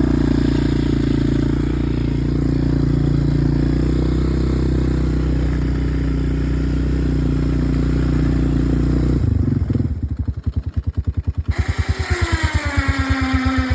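Yamaha Big Bear 350 ATV's single-cylinder four-stroke engine running steadily under load while plowing snow, then dropping about nine seconds in to a slow, uneven chugging idle.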